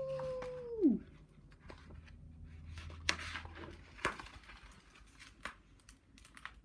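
A woman's imitated dog howl, the drawn-out "owww" of a basset hound, held on one pitch and then sliding down to end about a second in. Then the rustle and soft snaps of picture-book pages being turned.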